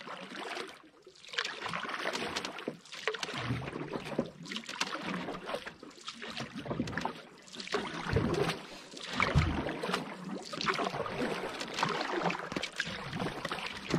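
Canoe paddle strokes in calm water: swells of splashing and dripping that rise and fall about every one to two seconds as the canoe is paddled and turned.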